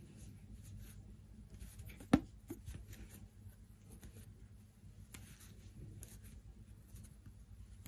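Faint rustling and scratching of a metal crochet hook pulling yarn through stitches as a single crochet border is worked, with a sharp click about two seconds in. A steady low hum sits underneath.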